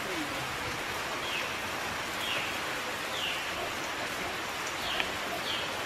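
Steady rain falling, with a bird giving short high chirps that slide down in pitch, about one a second. A single light knock about five seconds in.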